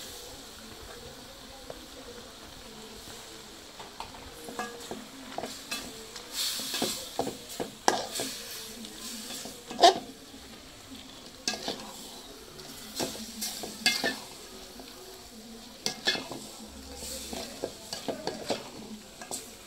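A long perforated steel ladle stirs raw chicken pieces through a thick masala in an aluminium pot. Scrapes and clicks of the ladle against the pot start a few seconds in and keep coming irregularly over a steady sizzle from the pot.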